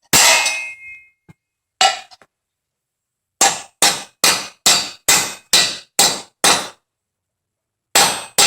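Hammer striking a steel concrete wedge anchor, driving it down into a hole drilled in the concrete floor. One ringing clang, another about two seconds later, then a quick run of about eight blows at roughly three a second, and more blows starting near the end.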